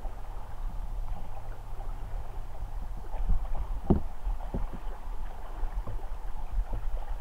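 Raft drifting on a river, with water moving around it and low wind rumble on the microphone. A few short splashes or knocks stand out, the loudest about four seconds in.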